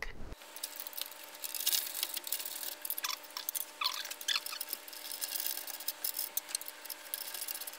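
Small fine-toothed reversible ratchet (Wera Tool-Check Plus) clicking rapidly as bolts are run up by hand: a dense, uneven patter of light ticks.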